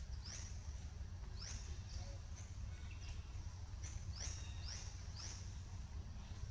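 Birds chirping: short high calls that drop in pitch, repeating several times at irregular intervals, over a low steady rumble.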